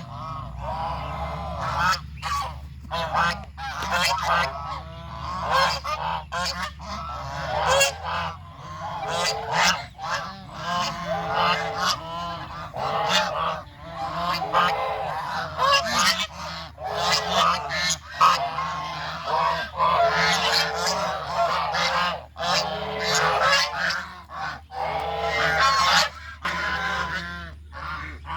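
A flock of domestic geese honking, many loud calls overlapping with no pause, over a low steady hum.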